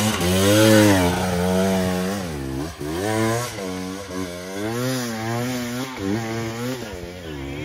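Dirt bike engine revving up and down repeatedly as the rider works the throttle on a steep hard-enduro hill climb, with its pitch rising and falling every second or so.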